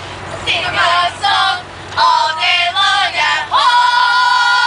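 A high-pitched voice singing a short wordless tune, two quick phrases and then one long held note.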